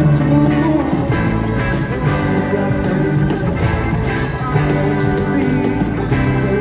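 A live rock band playing, with electric guitar.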